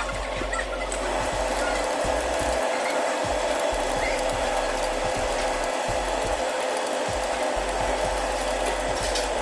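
Metal-turning lathe running steadily, turning a steel shaft, with a constant tone over an even noise.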